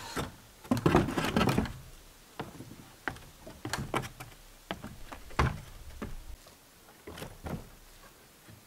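Wooden knocks and thuds as a man climbs and stands on a homemade wooden stepladder on a plank deck, with a louder clatter about a second in followed by a string of single knocks.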